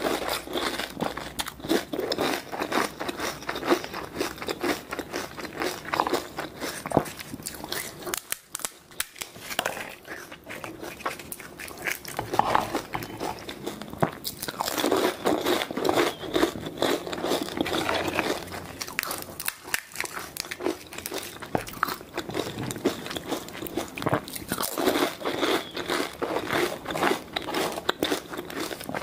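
Close-miked eating of pani puri: crisp, hollow fried puri shells cracking and crunching between the teeth, with wet chewing. The crunching runs continuously, with brief pauses about nine and twenty seconds in.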